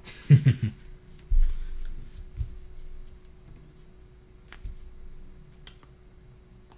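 A short laugh about half a second in, then a couple of soft low thumps and a few small clicks from movement at a desk, over a faint steady hum.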